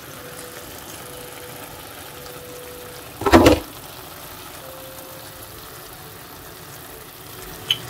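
Steady low kitchen hum with a faint steady tone over a pan of stew left to simmer on the stove, broken about three seconds in by one brief loud clunk.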